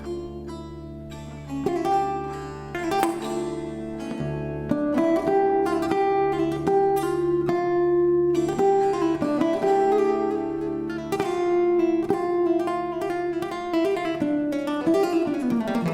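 Live fusion music led by acoustic guitar, plucked and strummed over a sustained bass line. It grows louder a couple of seconds in and again about five seconds in.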